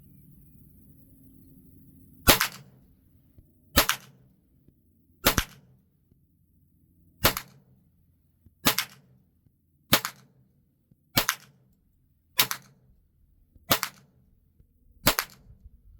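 Ten single .22 LR gunshots in slow, deliberate fire, one every second and a half or so, starting about two seconds in: a group shot with Federal AutoMatch .22 LR rounds.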